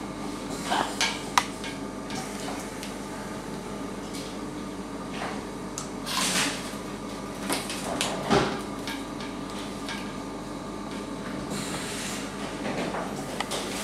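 Medical equipment being handled over a steady machine hum: scattered clicks, knocks and light rattles as the anaesthetic breathing tubing is fitted to the intubated dog. There are brief hissing rushes about halfway through and near the end.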